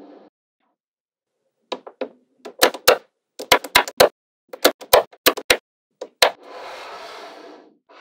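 Neodymium magnetic balls snapping together as panels of balls are pressed into place: a quick, irregular run of sharp clicks, starting after a second and a half of silence. Near the end comes a soft rustling rattle of about a second, as a strip of the balls slides across the tabletop.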